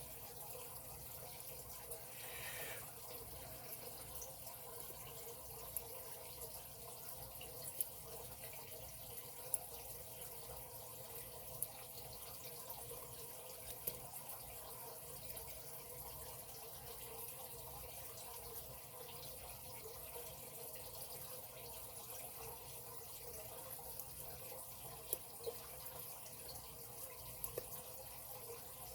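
Faint, scattered clicks of a lock pick and tension wrench working the pins inside a padlock during single-pin picking, over a steady hiss.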